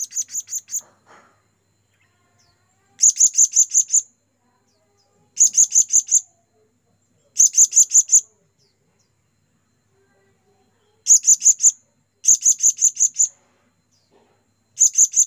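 Blue-crowned hanging parrot (serindit) giving its shrill contact call: seven short bursts of four to six rapid, high chirps a few seconds apart, the call it uses to summon other serindits.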